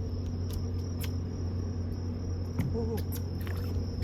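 Steady low hum of a fishing boat's engine, with a continuous high thin whine and scattered light clicks over it. A brief voice-like sound comes near three seconds in.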